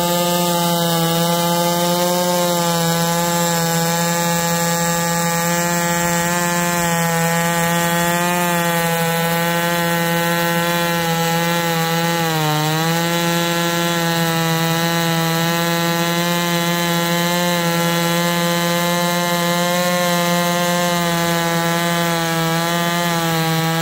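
Holzfforma G660 two-stroke chainsaw, a Stihl MS660 clone, running at full throttle on a chainsaw mill with its bar buried in almost 20 inches of cedar. The engine note holds steady under the load and sags briefly about halfway through before picking back up.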